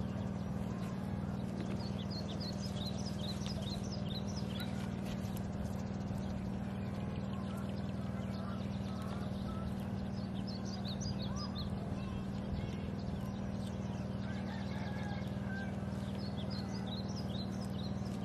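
Steady low motor hum, with small birds chirping in short quick runs three times: a few seconds in, about ten seconds in, and near the end.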